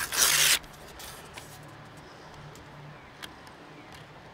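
Sheet of paper rustling sharply against a broadhead's blade in one burst of about half a second, then quieter paper handling with a few light ticks.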